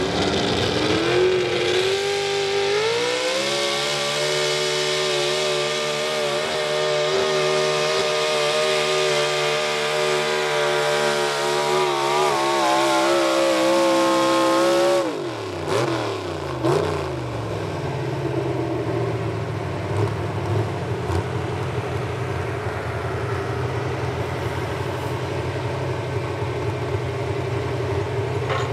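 Chevrolet Pro Stock 4x4 pulling truck's engine revving up and holding a high, steady pitch at full throttle while dragging the weight sled. About fifteen seconds in the revs fall away sharply as the truck stops, and the engine settles to a lower steady rumble.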